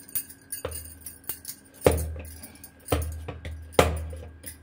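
Glass bangles clinking and jingling on a wrist as a ball of dough is rolled between the palms, with a dull knock about once a second.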